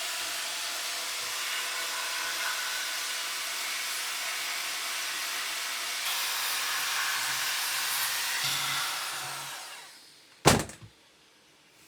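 A steady rushing hiss of air fades away near the end, followed by one sharp knock.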